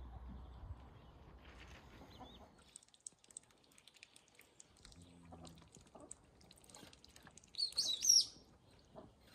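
Songbirds chirping, with one loud warbling call about eight seconds in. A low rumble sits under the first few seconds.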